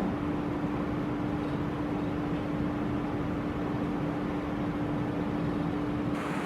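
Steady machine hum and hiss with one low, constant tone running under it.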